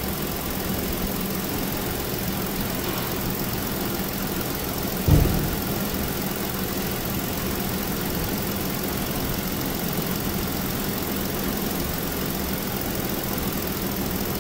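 Ford 3.5 L naturally aspirated V6 engine in a 2016 Explorer idling steadily, with one short thump about five seconds in.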